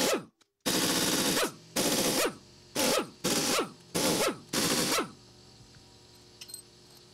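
Pneumatic impact wrench hammering in short bursts, six of them over about five seconds, each ending as the air motor winds down in pitch, while it breaks loose and spins out the cylinder head bolts of a Sea-Doo Rotax 1503 engine. After the last burst only a faint steady hum remains.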